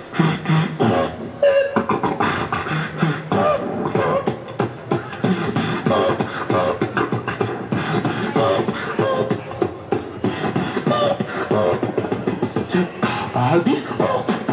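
Beatboxing into a handheld microphone: a dense stream of rapid percussive mouth sounds with short pitched vocal tones woven in.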